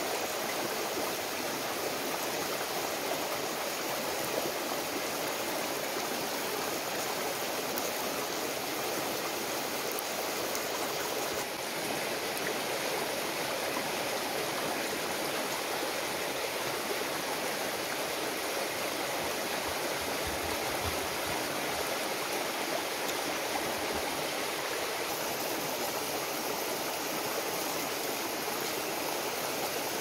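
Steady, continuous rush of running water, like a stream.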